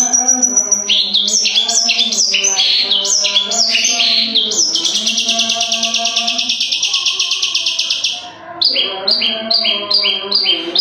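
Long-tailed shrike singing hard: a run of quick, high, downward-sliding notes, then a long buzzy trill of about three seconds in the middle, then more rapid repeated notes. Background music with held tones plays underneath.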